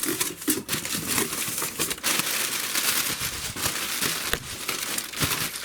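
Packaging crinkling and rustling as a parcel is handled and unpacked, with short clicks and knocks mixed in.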